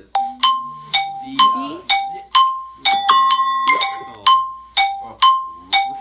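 Heads Up phone game sounds: a two-note electronic chime, a higher note stepping down to a lower one, repeating about twice a second. A brighter cluster of ringing tones sounds about three seconds in.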